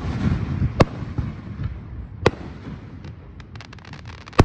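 Aerial firework shells bursting overhead: sharp bangs about a second in and again past two seconds, then the loudest bang near the end. A quick run of crackling pops comes just before that last bang, with a low rumble between the bangs.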